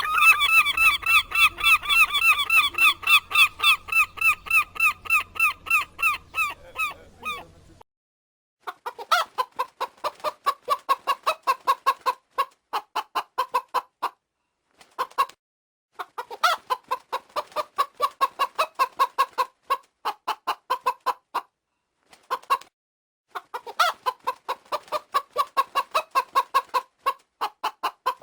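Domestic fowl calling. First a fast run of high, pitched calls, about six a second, for around seven seconds; then, after a short pause, three bouts of rapid clucking pulses with short gaps between them.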